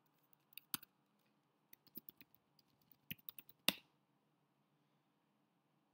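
Faint key clicks typed on a computer keyboard, a scattered run over the first few seconds ending with one sharper key press.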